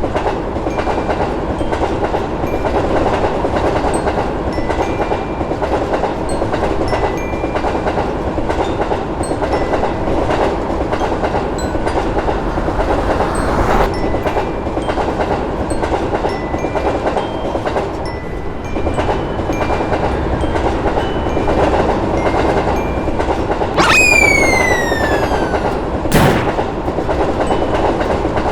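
A train running along the track with a steady rumble and the clatter of its wheels. Near the end a horn blows, its pitch sliding down over about two seconds, followed by a sharp click.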